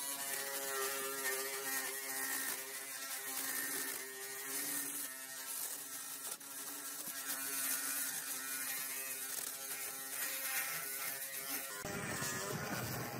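Electric drill spinning a sanding disc on a long extension shaft against a wooden tree stump: a steady motor whine with an abrasive hiss. About 12 seconds in, the sound changes abruptly to a rougher, lower grinding noise.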